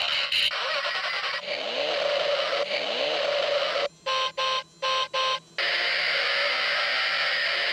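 Battery-operated transforming toy car running its motor and electronic sound effects: a steady whirring hiss, broken about four seconds in by three short electronic beeps, then the whirring starts again.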